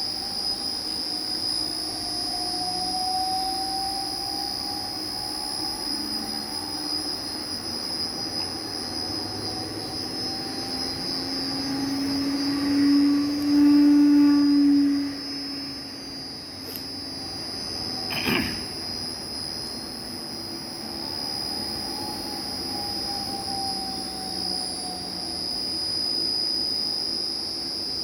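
Electric motor run from a Hitachi SJ700 frequency inverter, its whine slowly rising and falling in pitch as the drive ramps the speed, over a steady high-pitched switching whine. It is loudest around the middle, with a single sharp click later on.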